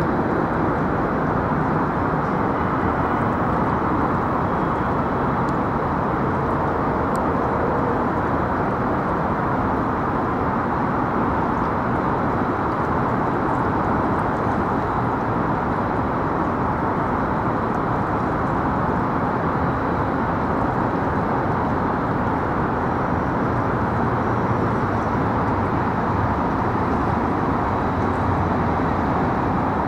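Steady, even vehicle noise with no distinct events.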